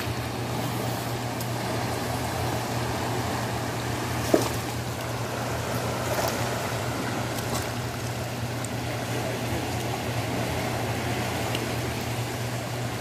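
Steady rush of a fast-flowing river below a dam, with a steady low hum underneath. A single sharp click about four seconds in.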